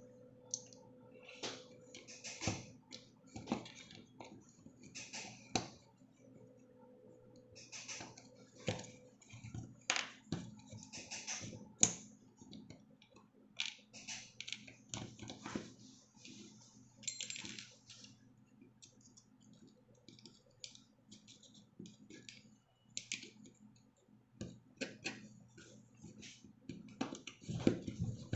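Irregular clicks and light knocks of small hard objects being handled, over a faint steady hum.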